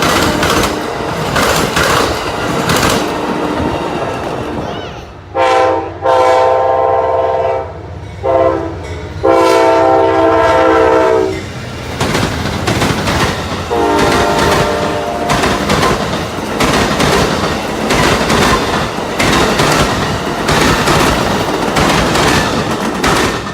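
Amtrak diesel passenger train passing, wheels clicking over rail joints under a steady rumble. About five seconds in, the locomotive's multi-tone air horn sounds four blasts, the third one short: the long-long-short-long grade-crossing signal.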